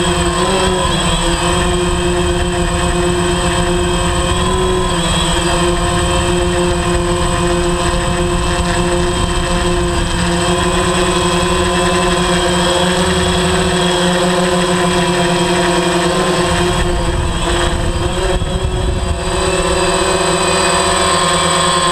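DJI Phantom 3 quadcopter's four motors and propellers in flight: a steady, loud buzzing whine of several tones, its pitch wavering slightly a few times.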